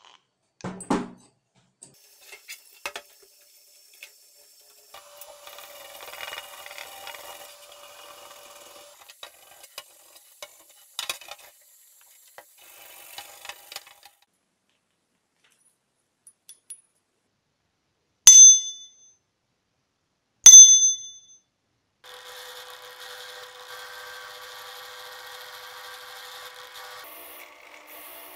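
Scattered metal clinks and rubbing, then two loud bell-like metallic rings about two seconds apart. After them a bench drill press starts and runs steadily.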